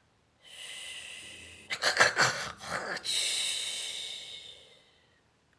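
A woman imitating a dog's snore: a long noisy in-breath that ends in a rattling snort, then a long breathy out-breath that fades away.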